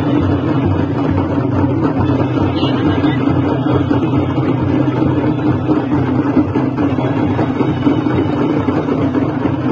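A Nashik dhol troupe drumming together on large barrel drums: a loud, dense, continuous rumble with no separate beats standing out.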